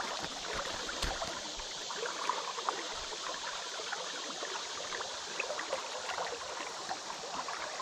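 Flowing river water babbling steadily, with small splashes and trickles scattered through it.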